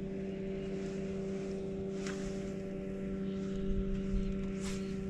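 A small fishing boat's motor running with a steady, even hum, with two faint brief noises about two seconds and four and a half seconds in.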